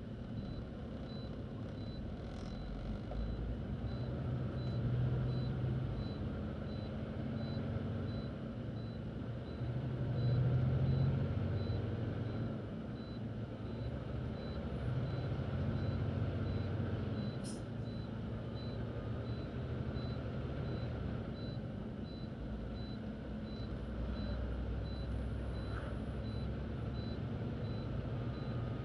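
Truck engine running inside the cab while driving, over steady road noise; the engine note swells and eases several times as the truck pulls away and picks up speed.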